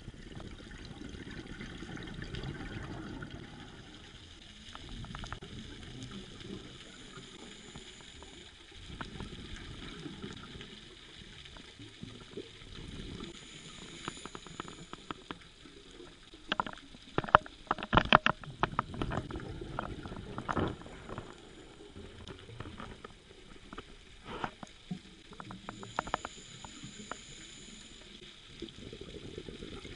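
Scuba diving heard underwater: the diver's regulator exhaust bubbles rumble and gurgle in bursts every few seconds. Around the middle comes a run of sharp clicks and knocks, with a few more a little later.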